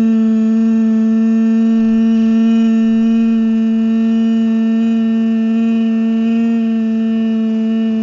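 A loud, steady drone held on one low pitch with a row of overtones above it, standing in for a cartoon vacuum cleaner running.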